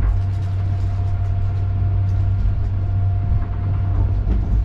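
Steady low rumble and hum of a moving vehicle, with a thin steady whine above it.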